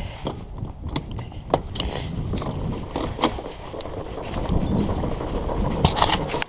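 Wind buffeting the microphone over a steady low rumble, with scattered sharp clicks and knocks throughout.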